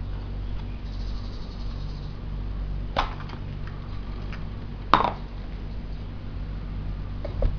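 Clear plastic toy capsule being pried open by hand: a sharp plastic crack about three seconds in, then a louder snap about five seconds in as the two halves come apart, over a steady low hum.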